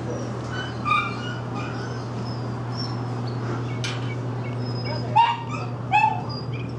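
Dogs barking and yipping, with two short, loud yips about five and six seconds in, over a steady low hum.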